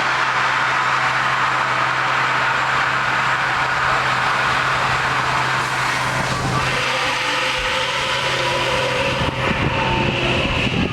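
Steady machinery noise with a low hum, its texture shifting about six and a half seconds in.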